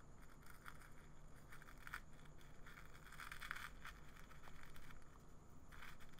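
Wooden teaspoon scooping dry loose-leaf tea in an aluminium tin: faint crackly rustling and scraping of the leaves, with a longer scrape about halfway through and another near the end.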